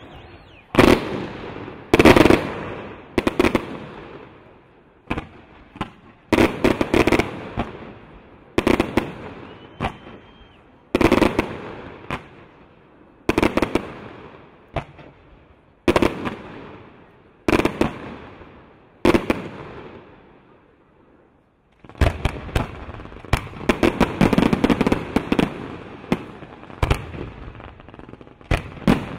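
Aerial fireworks shells bursting one after another, a sharp bang about every one and a half to two seconds, each trailing off behind it. After a short lull about two-thirds of the way through, a dense, rapid barrage of bangs and crackling.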